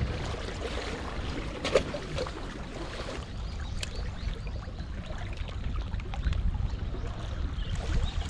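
Wind buffeting the microphone and water moving among breakwater rocks, with a few sharp clicks about two and four seconds in.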